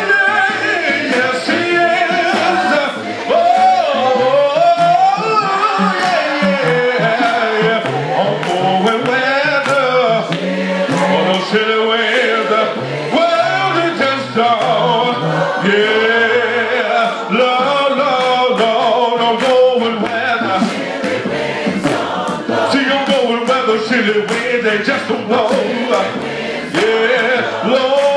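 Gospel congregational singing: a man leads the song through a microphone while other voices sing along, with sharp hand claps throughout.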